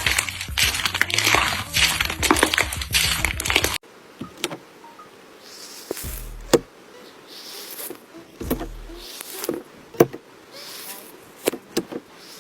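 Slime being handled, with a dense run of crackles over music with a steady bass line for the first few seconds. After a sudden cut, the sound is quieter: scattered sharp pops and short soft swishes.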